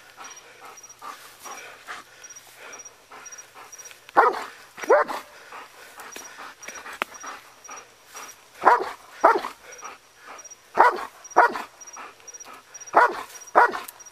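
Police K-9 barking in short doubled barks, four pairs in all with the first about four seconds in, while holding suspects at bay.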